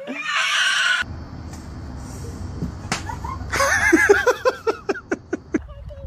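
Domestic geese honking: a rapid run of calls starting a little past halfway, loudest at first and fading off, over wind rumbling on the microphone. A short rushing noise fills the first second.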